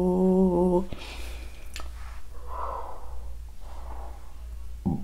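A woman humming one held note with closed lips, wavering slightly, until it stops about a second in. Soft breaths follow.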